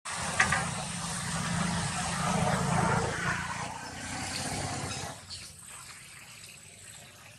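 A vehicle passing by, swelling to its loudest about three seconds in and fading away about five seconds in.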